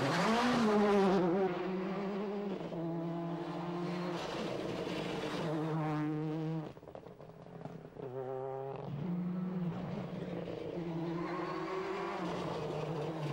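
Ford Focus WRC rally car's turbocharged four-cylinder engine running hard at speed, the pitch rising and falling with throttle and gear changes. The engine note drops away for about a second and a half near the middle, then picks up again.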